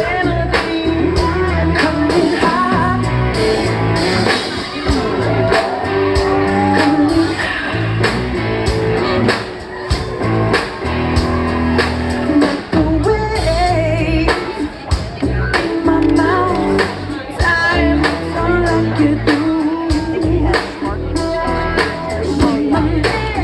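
Live rock band playing with a male lead singer: sung vocal over a steady drum beat and bass.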